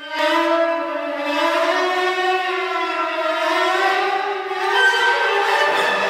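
Solo cello bowing one long sustained note that slowly bends in pitch, sliding down and then back up, with a new bow stroke about five seconds in.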